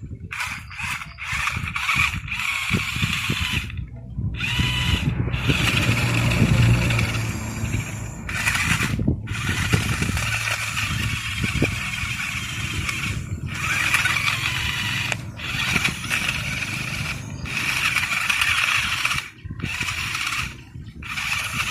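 Radio-controlled model bulldozer's electric drive motors and gearboxes whining, cutting out and starting again every second or few as it drives and slides round, over a low crackling scrape.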